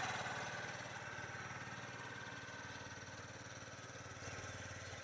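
A boat's motor running steadily with an even low throb, slowly growing fainter.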